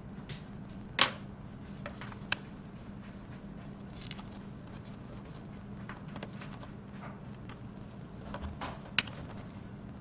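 Small sharp clicks and taps of a metal link watch band being handled and taken apart to adjust its length. The loudest click comes about a second in and another near the end, with fainter ticks between, over a steady low hum.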